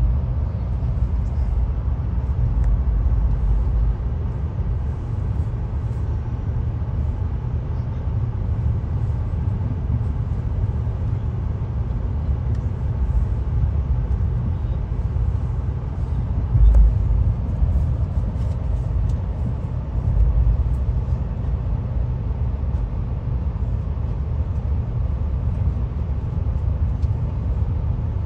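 VIA Rail's Canadian passenger train rolling along the track, heard from inside a Skyline dome car: a steady low rumble, with two brief louder bumps a few seconds apart in the second half.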